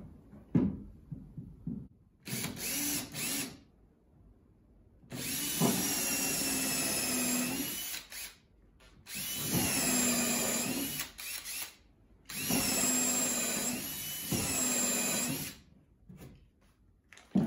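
Cordless drill driving screws into a wooden seat riser in several runs of one to three seconds each, the motor's note dipping under load as each screw draws in.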